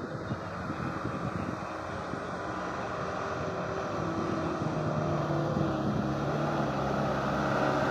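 Diesel truck engine running, growing steadily louder, its low rumble settling into a steady hum over the second half.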